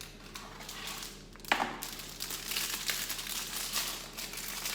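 Ready-rolled pastry sheet being unrolled from its baking paper, the paper crinkling, with one sharp crack about a second and a half in.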